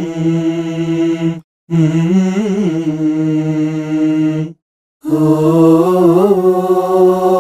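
Layered a cappella singing: one voice recorded four times over, played back holding long notes in phrases separated by brief breaks about a second and a half in and again near four and a half seconds. All the takes are panned to the centre, which crowds them together in the middle and sounds annoying.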